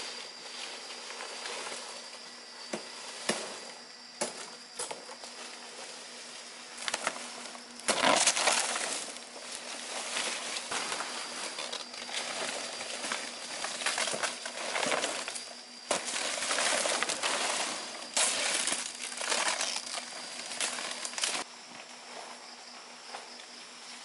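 Leaves and brush rustling and crackling as a person pushes through dense undergrowth, with a few sharp snaps in the first several seconds and the loudest, busiest stretch in the middle before it stops near the end. A steady high insect whine runs underneath.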